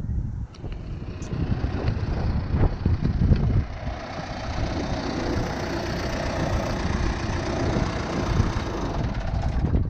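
John Deere tractor's diesel engine running close by as the tractor rolls up on grass, settling to a steadier sound in the second half.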